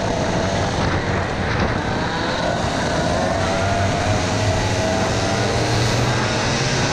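Two-stroke IAME X30 racing kart engines running at full throttle, heard from onboard the driver's own kart with other karts close by. The engine pitch climbs as the kart accelerates out of a corner onto the straight.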